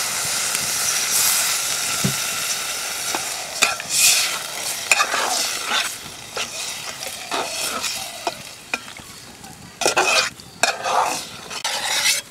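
Water poured from a jug into a pot of simmering flat-bean curry, a steady pouring rush for about the first three seconds. Then a steel spatula stirs, scraping and knocking against the metal pot in a series of separate strokes, loudest about four and about ten seconds in.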